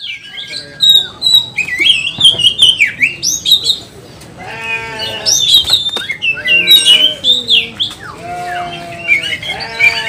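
Oriental magpie-robin (kacer) singing a loud, fast, varied song of sweeping whistles and harsh notes, the agitated, over-excited singing of a territorial bird. Lower, drawn-out calls join in the second half.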